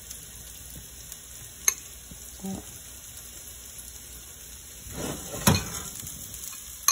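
Steady sizzle of food frying in a pan, with a metal spoon scooping cooked rice out of a glass bowl: a sharp clink about a second and a half in, and a louder low thump with a clink about five and a half seconds in.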